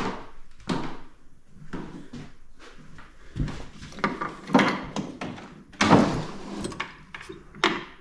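Old wooden sideboard being handled: its cupboard doors and a drawer are knocked and pulled open, a series of wooden knocks and scrapes, the loudest about six seconds in.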